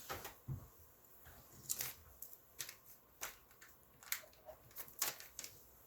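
Scattered light clicks and crackles of hard plastic graded-comic slabs being handled and set down.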